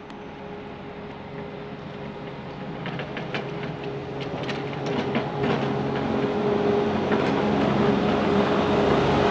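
Diesel engine of a compact wheel loader fitted with a snow-plough blade, running steadily and growing louder as it approaches on a slushy street. A run of sharp clicks and rattles comes through the middle.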